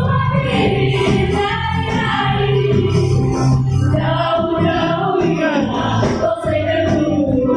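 Children's choir singing a gospel praise song in a local language, with instrumental accompaniment and a steady bass line underneath.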